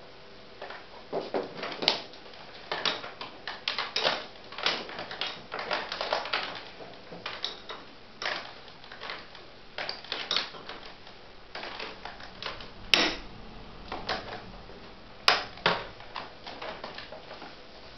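Irregular clicks, taps and knocks of hard objects being handled, with two sharper knocks about thirteen and fifteen seconds in; no motor is running.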